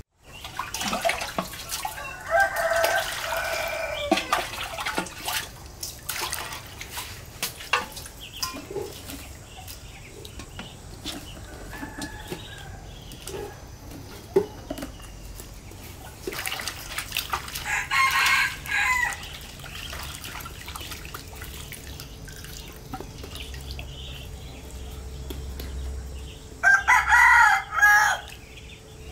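A rooster crowing three times, the last crow the loudest, over small splashes of water being scooped and clinks of a metal bowl as vegetables are washed.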